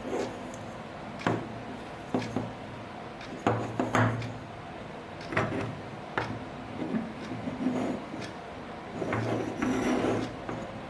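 Hard parts being handled, with irregular knocks and rubbing or scraping: several separate knocks, then a longer stretch of scraping near the end.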